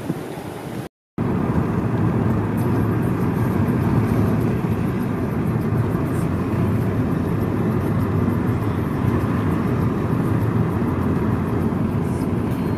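Waterfall rushing for about the first second, then after a brief cut to silence, steady road and engine noise inside a moving car's cabin.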